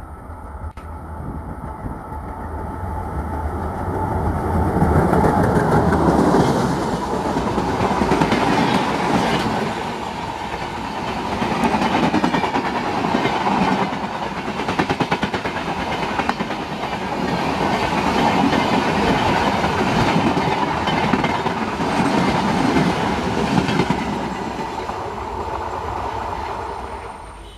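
Diesel-hauled Indian Railways express train passing at speed. The noise builds over the first few seconds as the locomotive approaches, then the coaches run by with a fast rhythmic clatter of wheels over the rail joints, swelling and easing in waves, and it falls away at the very end.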